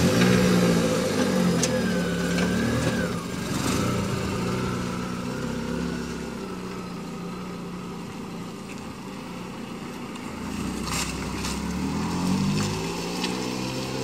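A Chevrolet Classic sedan's engine running and revving as the car pulls away, its sound fading as it drives off, then growing louder again near the end.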